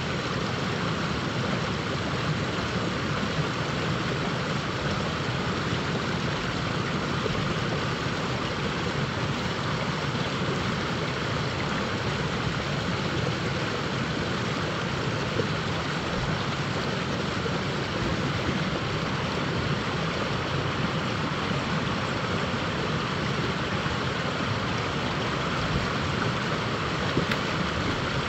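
River water rushing steadily over a rocky riffle, an even constant rush with no breaks.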